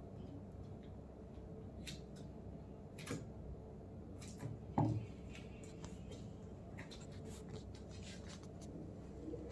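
Faint rustles and short clicks of a roll of masking tape and scissors being handled while tape is laid and pressed onto a canvas board, with one dull knock on the table about five seconds in.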